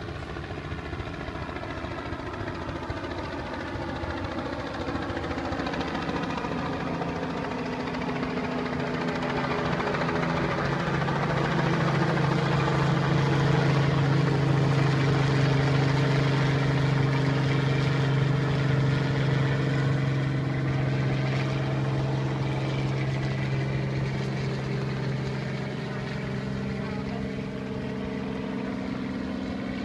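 An engine runs steadily with a low hum. It grows louder toward the middle and then eases off.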